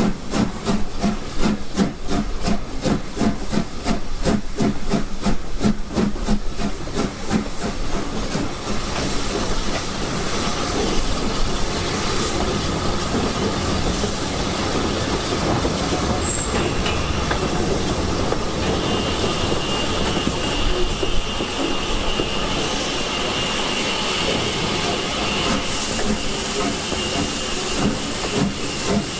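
S15 class 4-6-0 steam locomotive 506 working hard up a steep gradient: rapid, rhythmic exhaust beats for the first several seconds, then a more even rush of steam and rail noise. A steady high-pitched tone joins about two-thirds of the way in.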